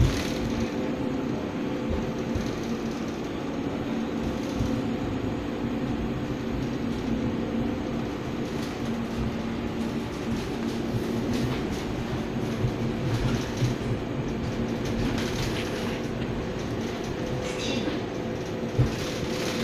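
BN T2000 low-floor tram running, heard from inside the passenger car: a steady rumble of wheels on the rails with a steady hum from the drive underneath.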